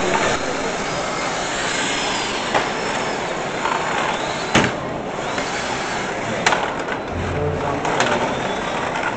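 Small hockey robots driving over the rink floor, their electric motors whining up and down, with about four sharp clacks as they strike each other, the puck or the boards; the loudest comes about halfway through. A steady din of crowd noise runs underneath.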